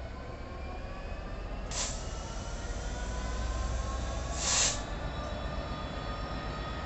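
Class 66 diesel locomotive running, its EMD two-stroke engine giving a steady low rumble, with faint whines rising slowly in pitch. Two short hisses of air cut through, about two seconds in and again, louder and longer, at about four and a half seconds.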